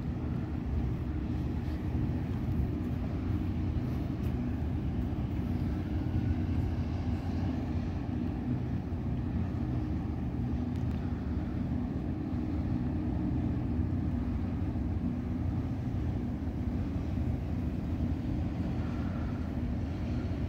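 Steady low drone of a ship's engines, heard from on deck, with wind on the microphone.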